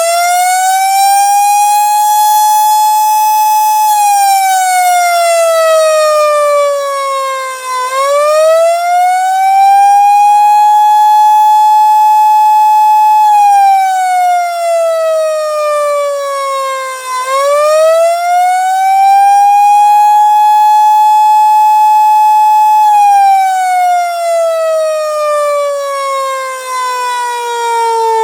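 Carter air raid siren sounding the attack signal, a slow rising-and-falling wail. The pitch holds high for a few seconds, slides down and climbs back, about every nine seconds, and is sliding down again near the end.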